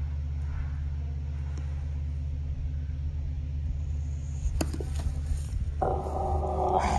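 A steady low hum, then a few light clicks. About six seconds in, a large frog being grabbed by hand gives a loud, held, pitched distress cry lasting about a second.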